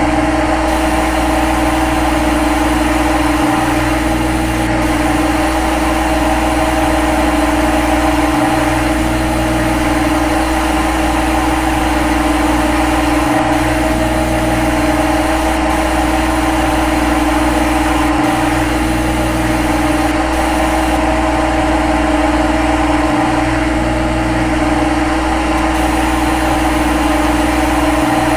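Steady machine hum: a strong constant tone over a low rumble, the rumble dropping out for an instant about every five seconds.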